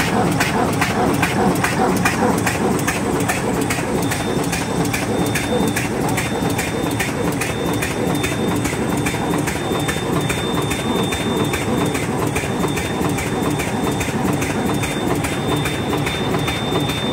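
Side-sealing patch handle bag making machine running at production speed: a fast, even clacking of about two to three strokes a second, one per bag sealed and cut, over a steady hum of motors and rollers. A thin high whine joins about four seconds in.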